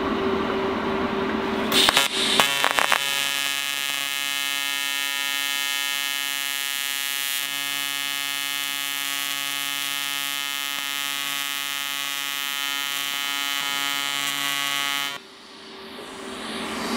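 TIG welding arc from an AHP Alpha-TIG 201XD on aluminium sheet. A short crackle about two seconds in as the arc strikes, then a steady electric buzz for about thirteen seconds, cutting off suddenly near the end when the arc is broken.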